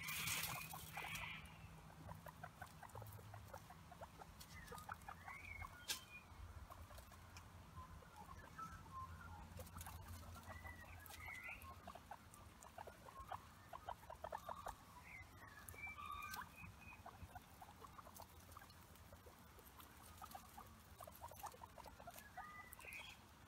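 Guinea pigs foraging in dry leaf litter and mulch: faint rustling and small crisp crunches of chewing on grass, with a few short high squeaks now and then. A louder burst of rustling comes in the first second.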